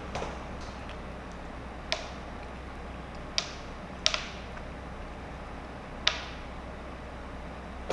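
A few sharp, isolated clicks and taps from fingers handling a lemon slice over a plastic cutting board, five in all with two close together about four seconds in, over a low steady room hum.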